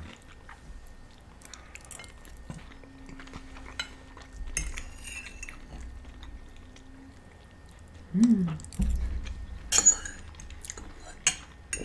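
Metal forks scraping and clinking on plates of rice and meat, in scattered small clicks with a few sharper clinks near the end, and quiet chewing between them.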